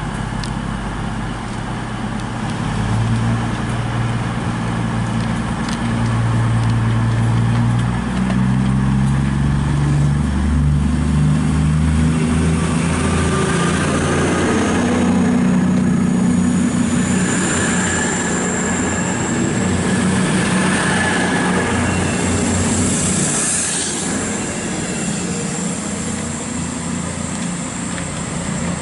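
A Class 221 Super Voyager diesel multiple unit pulling away, its diesel engines revving up in steps as it gathers speed. A high whine rises about halfway through, and the sound eases slightly near the end as the train moves off.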